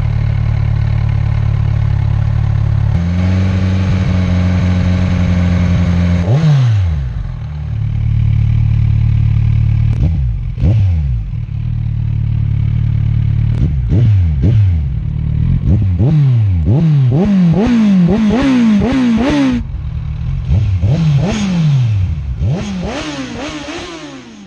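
Kawasaki Z1000 inline-four engine idling, then held at a steady higher rev for about three seconds. It is then blipped over and over, each rev dropping quickly back to idle, with a fast run of blips in the second half. The sound fades out at the end.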